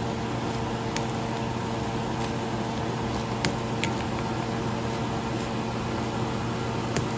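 A steady mechanical hum from a kitchen appliance runs under a faint even hiss. A few sharp clicks sound as a utensil knocks the stainless steel pot while bok choy leaves are tossed; the loudest come about three and a half seconds in and near the end.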